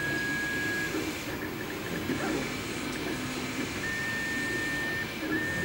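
MakerBot 3D printer printing: its motors whine in steady held tones as the print head moves, one tone through the first second, another from about four seconds in and a slightly higher one just after, over a steady machine noise.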